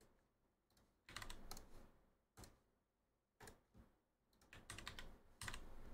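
Faint computer keyboard typing and key clicks in several short bursts.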